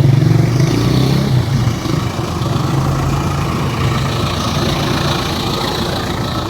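A motorcycle engine running close by, loudest at the start and fading after a couple of seconds as it moves off, over steady street noise.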